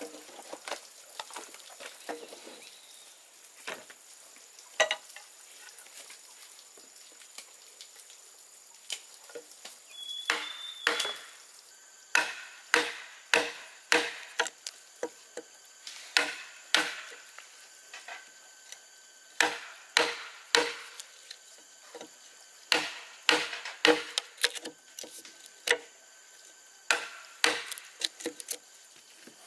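A hand tool striking wood again and again. A few light knocks come first, then from about twelve seconds in a run of hard, sharp blows about one to two a second, broken by short pauses.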